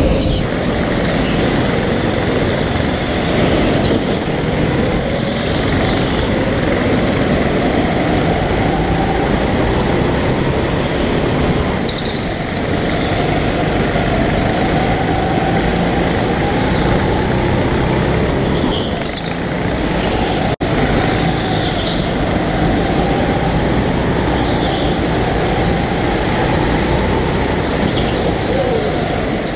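Go-kart engine running hard, heard from the driver's seat, its pitch rising and falling gently through the laps. Short tyre squeals come in the corners every several seconds.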